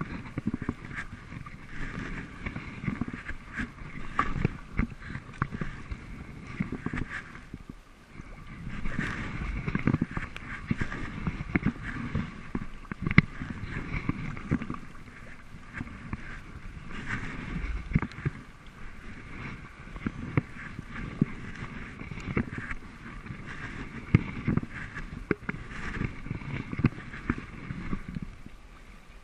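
Sea kayak being paddled through choppy water: the paddle blades dip and splash on alternate sides stroke after stroke, and water slaps and gurgles against the hull.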